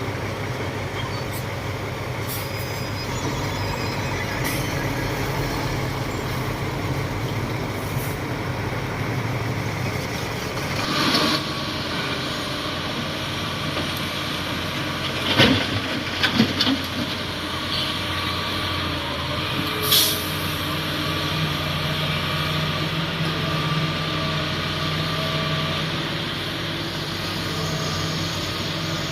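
Komatsu D58 bulldozer's diesel engine running steadily, picking up speed slightly about two-thirds of the way through. Several sharp knocks and clanks in the middle stand out above the engine.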